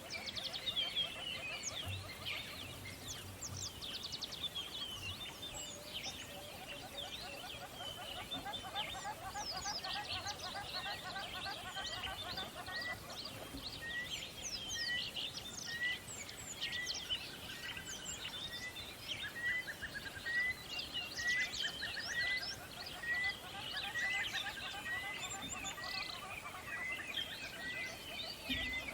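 Several songbirds chirping and calling over one another in quick, overlapping chirps and trills. From about halfway through, one bird repeats a short rising note over and over, under a second apart.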